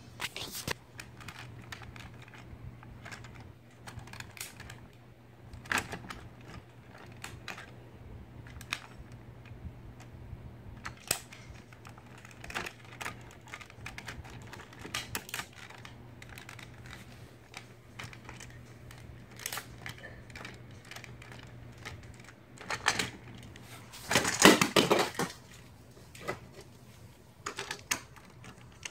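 Irregular clicks, taps and rubbing from the recording phone being handled, with skin or fingers against it; a louder, longer bout of rubbing comes about three-quarters of the way through.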